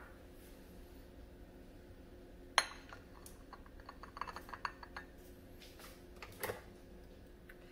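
Dishes and cutlery being handled, clinking. There is a sharp knock about two and a half seconds in, a run of lighter clinks after it, and another knock near the end.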